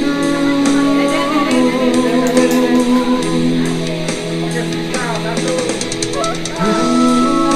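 Background music: a guitar-led song with long held notes over a steady beat.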